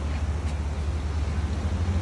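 Fast-flowing muddy floodwater rushing past, a steady, even noise with a strong low rumble.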